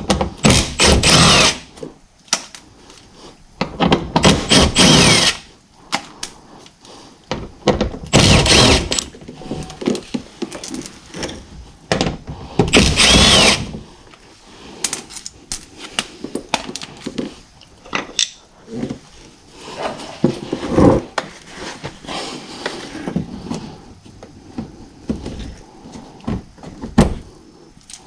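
Cordless impact gun running in four short bursts of about a second each, a few seconds apart, backing out 10 mm bolts. Afterwards, scattered clicks and knocks of plastic trim and clips being handled.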